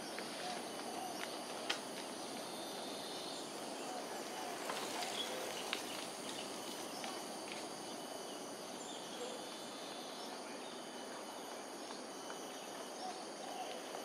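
Steady outdoor background ambience: an even low hum with a faint high-pitched drone above it, a few faint chirps, and a couple of sharp clicks about 2 and 6 seconds in.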